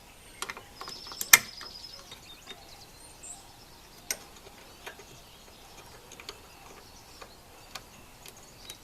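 Socket ratchet clicking in a quick run as a bolt on a snowblower gearbox is turned, with one sharp metal clink about a second and a half in, followed by scattered light clicks and taps of tools on metal.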